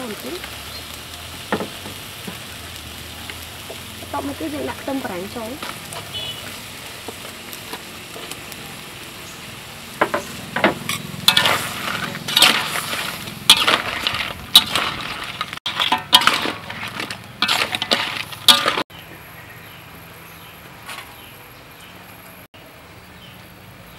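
Crab curry sizzling in a metal wok, then a metal spatula scraping and knocking against the wok in quick, irregular strokes as it is stirred, from about ten seconds in. Near the end the sound drops to a quieter steady background.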